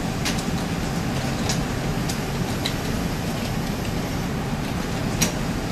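Steady low mechanical hum of a PR2 robot running as its arms reach down and grasp a paper plate, with a few faint, sharp clicks.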